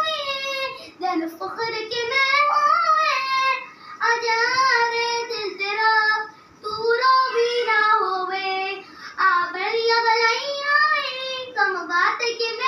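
A young girl singing unaccompanied, in sung phrases with short pauses for breath between them.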